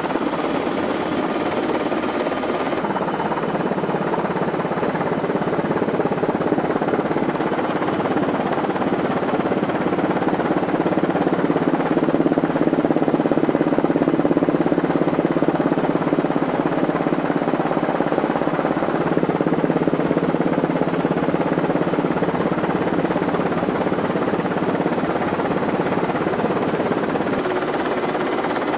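Helicopter engine and rotor drone heard from on board: a steady low hum that swells slightly around the middle.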